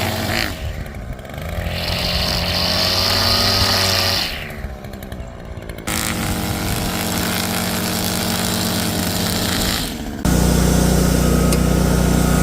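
Small engines of lawn equipment running at work, in several short clips cut together: the sound changes abruptly about half a second in, around four seconds, six seconds and ten seconds. The last clip is the loudest, a steady low engine drone.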